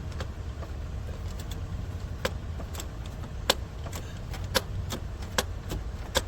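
Ratchet clicking in short, irregular single clicks as it backs out a freshly loosened upstream oxygen sensor, over a steady low rumble.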